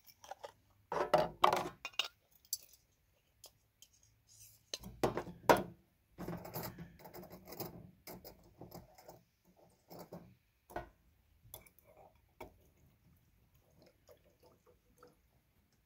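Light clicks, clinks and plastic knocks of a small backpacking canister stove being taken from its plastic case and screwed onto a gas canister, the loudest knock about five seconds in. Near the end water is poured from a bottle into a metal camp pot.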